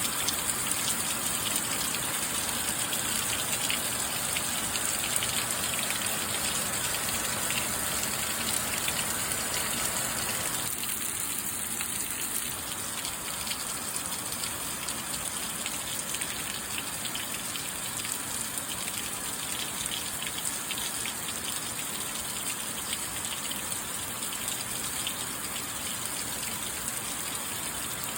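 Steady rain, a dense hiss of falling drops. About eleven seconds in, the sound changes abruptly to a slightly quieter, thinner rain with less low rush.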